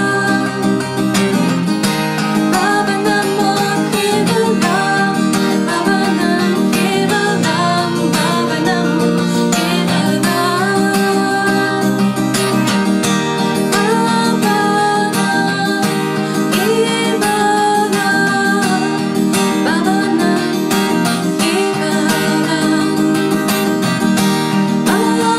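Acoustic guitar with a capo being strummed through a repeating chord progression, the chords changing every second or two.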